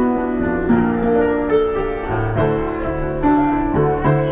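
Piano playing live: a flowing melody over low bass notes, the notes changing about every half second.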